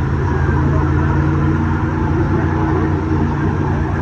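Mega truck engine running steadily with a deep, even rumble.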